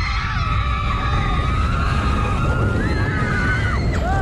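Riders screaming in long, overlapping held cries as the flume-ride boat plunges down the drop, over a steady low rumble of rushing air and water. Near the end a sudden crash marks the boat splashing down.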